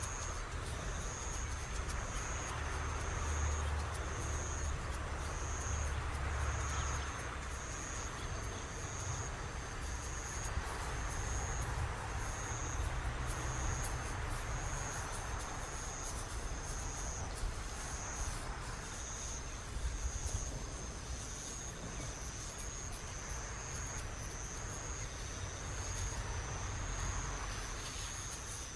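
An insect chirping outdoors: one high, thin note repeated evenly, a little more than once a second, over a low, steady rumble.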